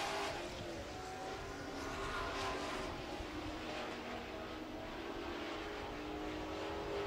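Dirt-track super truck race engines running at speed as several trucks lap the oval. The overlapping engine notes drift up and down in pitch.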